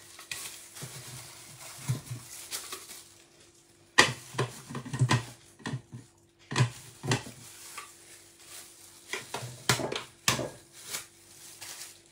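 Irregular knocks and clicks of things being handled on a kitchen counter beside an electric juicer, a few of them sharp and loud, over a faint steady hum.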